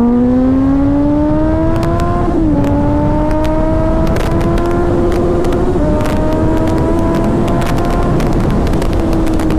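Motorcycle engine under way: the revs rise for about two seconds, drop briefly at a gear change, then hold a fairly steady pitch. Wind rushes and buffets on the helmet microphone.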